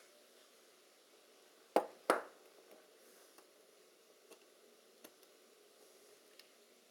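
Two sharp metallic clicks about a third of a second apart, each with a short ring, as the small metal parts of a Helios 44M-6 lens's rear mount are fitted by hand; a few faint ticks follow as the fingers keep working the parts.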